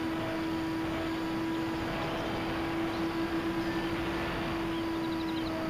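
Electric motors and propellers of a Dynam Skybus DC-3 model airplane in flight, heard from on board: a steady drone with rushing air noise. The drone wavers briefly near the middle.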